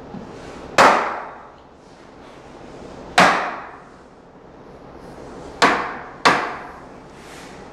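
Club hammer striking the plastic five-star base of an office chair four times, the last two in quick succession. Each blow is a sharp knock that dies away over about half a second. The blows are knocking the press-fitted seat column loose from the base.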